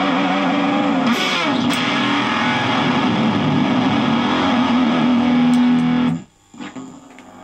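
Fender Stratocaster played through a Fender Shields Blender octave fuzz, a thick distorted lead line ending on a held note. About six seconds in it stops suddenly, leaving only the amplifier's hum and a few small clicks.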